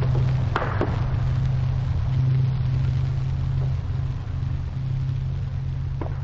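1944 wartime field recording of a battlefield: a steady low drone with three sharp distant shots, two close together about half a second in and one near the end.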